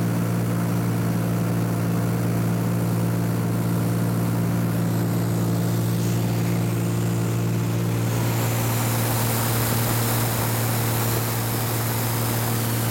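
Light aircraft's piston engine and propeller droning steadily, heard from inside the cabin. About eight seconds in, a hiss of rushing air grows louder over it.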